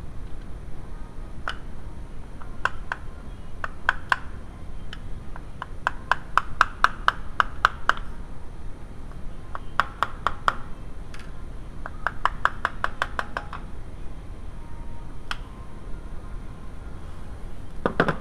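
Hand ratchet clicking in several short runs of quick, even clicks, with a few single clicks between, as tools work at the camshaft end of a VW 2.0L ABA engine.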